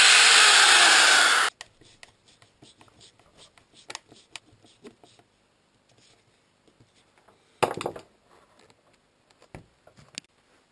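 Power drill boring a hole through the black plastic pump tube, running steadily, then stopping abruptly about a second and a half in. Faint clicks and scrapes follow as a screwdriver drives a small brass screw into the hole, with one short louder scrape about three-quarters of the way through.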